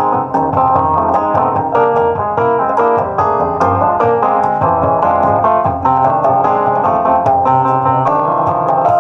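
Live piano playing a busy instrumental passage, notes struck in quick, steady succession, with no singing.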